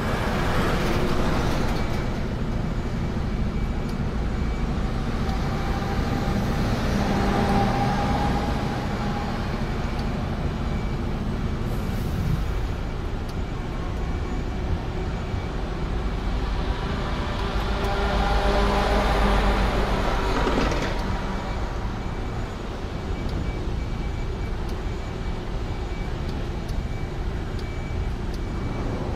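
A truck's engine running with road and traffic noise, swelling louder three times.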